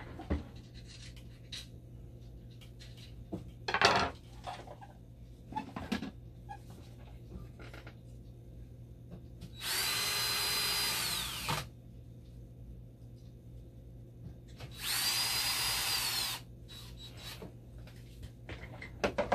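Cordless drill/driver running twice in short bursts of about two seconds each, its motor spinning up, holding a steady whine and winding down, as screws are driven into a dialysis machine's front panel. Handling knocks and clicks come between the runs, with a sharp knock about four seconds in.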